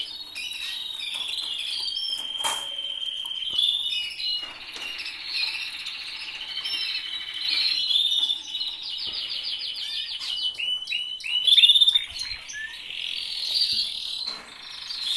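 Canaries singing: fast rattling trills and high warbled chirps, phrase after phrase, with a louder burst of song about three-quarters through.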